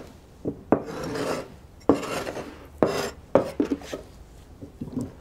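Cleaver chopping cucumber on a wooden chopping board: irregular knocks of the blade on the wood, with a longer scrape about a second in.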